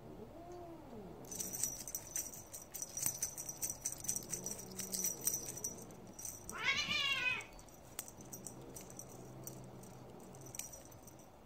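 A long-haired grey kitten meowing: a low meow near the start and a loud, high, wavering mew about seven seconds in. A jingling rattle runs from about a second in until just before the high mew.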